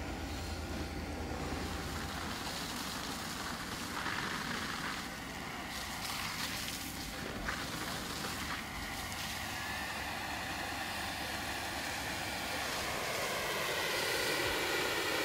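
Motor vehicle running, with steady rushing noise; near the end an engine note rises in pitch and grows louder.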